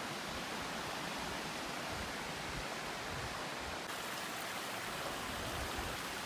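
Steady rush of a mountain stream running over rocks and small waterfalls.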